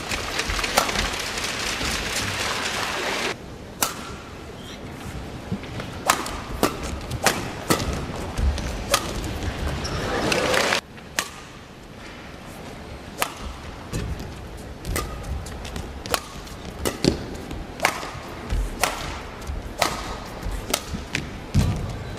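Badminton rally: rackets strike the shuttlecock in sharp cracks about once a second. Loud arena noise comes before it and cuts off after about three seconds. In the middle, noise swells for a few seconds and stops abruptly.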